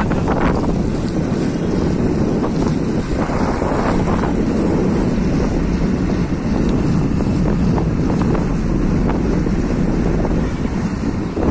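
Steady wind buffeting the microphone while moving along a road, with a low rumble underneath.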